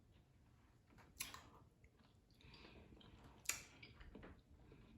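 Faint close-up chewing and mouth sounds of someone eating seafood boil, with a sharp click a little after a second in and a louder one about three and a half seconds in.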